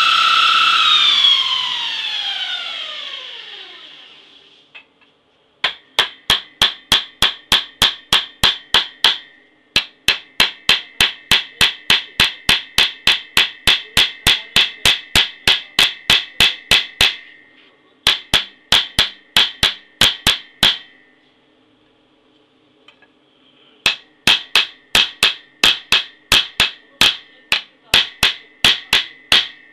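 A belt grinder is switched off, its whine falling in pitch as it runs down over about four seconds. Then a small hammer taps quickly on a knife clamped in a steel vise, about four strikes a second, each one ringing, in four runs with short pauses between them.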